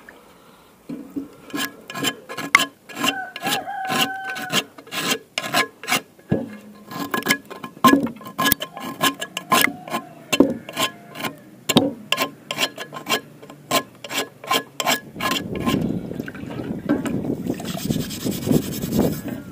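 Rusty frying pan being scraped hard by hand, a quick run of sharp, irregular scraping strokes with a couple of brief squeaks. About fifteen seconds in it turns to a denser, gritty, wet scrubbing as the pan is scoured in a bowl of muddy slurry.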